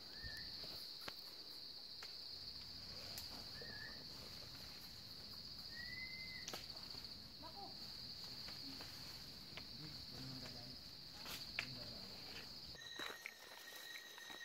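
Insects in the forest making a steady high drone, with scattered footfalls on the trail and a few short chirps. The drone stops near the end, leaving a couple of thin steady tones.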